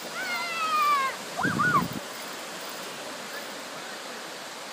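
Two short high-pitched shouts in the first two seconds, then the steady wash of small waves breaking on the shore.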